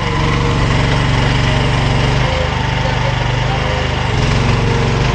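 Engine running steadily, its note shifting slightly a little over two seconds in.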